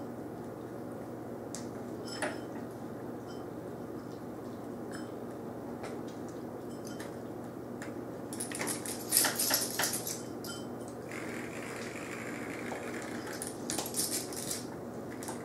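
An American cocker spaniel puppy tugging at a cat's hanging pull-string toy: the toy knocks and jingles and the puppy's claws click on the tile floor. The clicking comes in bursts about eight seconds in and again near the end, over a steady low hum.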